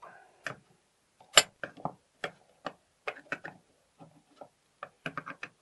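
A dozen or so sharp metallic clicks and taps at irregular intervals as a screwdriver works the steel parts of a century-old mortise door lock loose, the loudest about a second and a half in.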